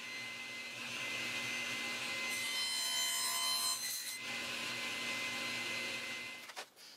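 Fine-toothed handsaw cutting into the end grain of a walnut tenon, sawing the kerf for a wedge, in a steady run of strokes that stops shortly before the end. A brief high ringing shows partway through.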